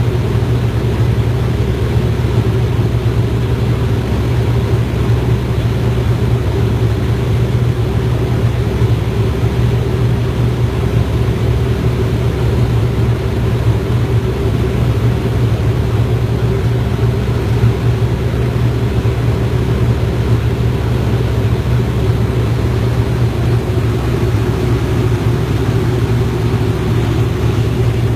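Light propeller aircraft's engine droning steadily in flight, a loud, even hum that does not change in pitch or level.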